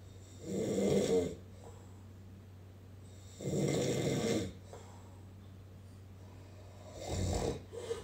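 A man snoring in his sleep: three loud snores, each about a second long and roughly three seconds apart, over a steady low hum.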